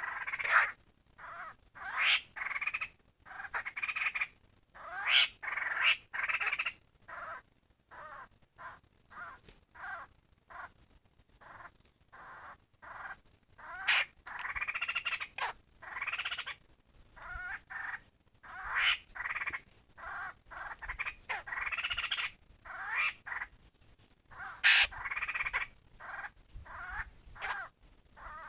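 Laughingthrush giving its harsh 'kíu' calls, short calls repeated in irregular runs with brief pauses, some much louder than others.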